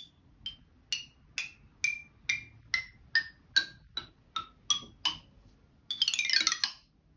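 Dan Trung bamboo xylophone struck with ball-headed mallets: single notes stepping down the scale about two a second. Near the end comes a quick run sweeping down across the bamboo tubes.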